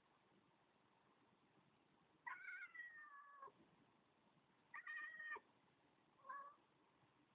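Domestic cat meowing three times: a long call that slides down in pitch, a shorter one, then a brief softer one near the end.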